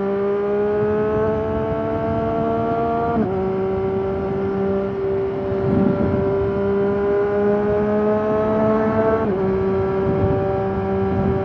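Triumph Daytona 765 Moto2's inline-three engine pulling under throttle, its pitch climbing slowly and then dropping at an upshift about three seconds in and again near nine seconds. Gusty wind rumbles on the microphone throughout.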